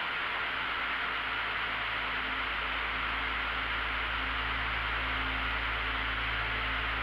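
Steady rushing engine and wind noise of a light aircraft in flight, with a low rumble that comes in at the start and holds steady.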